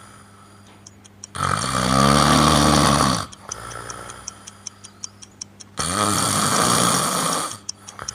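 A man snoring heavily in his sleep: two loud snores, each about two seconds long and about four seconds apart, with a clock ticking quickly between them. The sleeper's overnight sleep study found his breathing stopping or shallowing about 36 times an hour.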